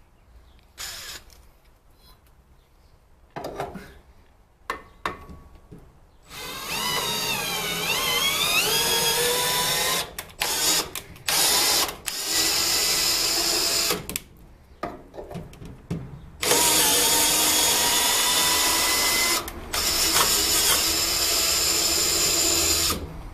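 Cordless drill-driver running in several bursts while driving fasteners on a car's exhaust fittings. The motor pitch wavers up and down in the first long run, then come a few short blips and two long, steadier runs near the end.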